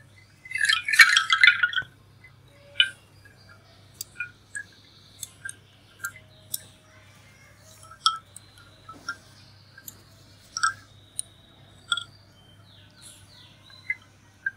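A quick clattering run of light, bright clinks about half a second in, lasting about a second and a half, then scattered single clicks and ticks.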